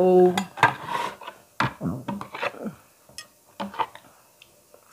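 Glass plates clinking as one is lifted off a stack, and a metal spoon scraping and tapping in a plastic bowl: scattered short knocks and clinks, busier in the first half. A brief voice sound right at the start.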